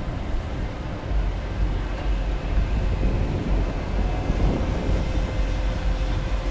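Wind buffeting the microphone of a camera riding an open chairlift, a gusting low rumble over a muffled wash of fairground noise; a faint steady hum joins about four and a half seconds in.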